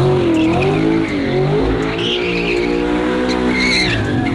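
All-wheel-drive car doing a donut: the engine revs up and down while the tyres squeal on and off as they spin.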